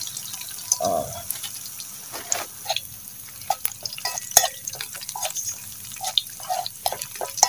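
Shallots, garlic, whole chilies and dried anchovies frying in hot oil in a steel wok, a steady sizzle broken by many sharp pops and crackles, which come from the whole chilies bursting in the oil.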